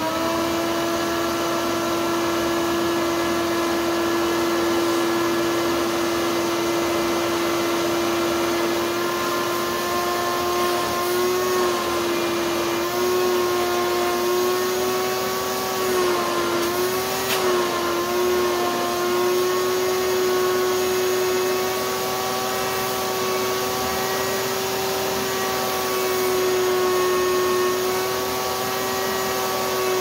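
Shop vac running with a steady motor whine. In the middle its pitch wavers and dips several times as the gown's fabric is drawn into the hose and partly chokes the airflow.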